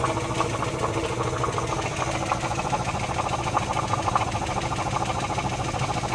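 An engine or motor running steadily, with a fast, even pulse.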